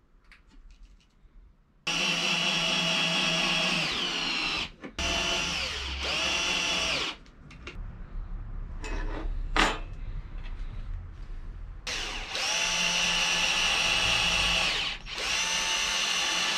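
Cordless drill-driver driving screws into wood: four runs of motor whine, each two to three seconds, in two pairs, the pitch sagging at the end of each run. Between the pairs there are quieter handling knocks and one sharp click.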